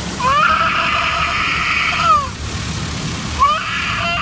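Frightened toddler screaming in two long, high-pitched screams, each rising in pitch at the start and falling away at the end, the second starting about three and a half seconds in.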